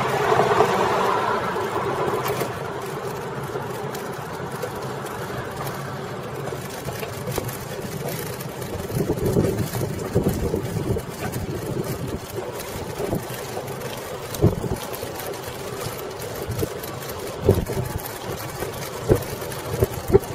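Riding noise of a big-wheeled cruiser bicycle on a city street. A passing car fades out over the first couple of seconds, then a steady rumble carries on, with irregular knocks and rattles from about nine seconds in as the bike rolls over the pavement.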